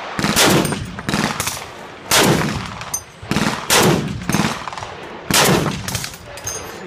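Barrett-style .50-calibre semi-automatic rifle firing four heavy shots about a second and a half apart, each a sharp crack with a long echo, with quieter cracks between them.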